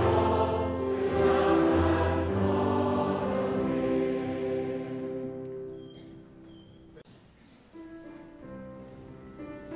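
Recorded choir singing with accompaniment, fading out over a few seconds. About eight seconds in, quieter music with sustained held notes starts up.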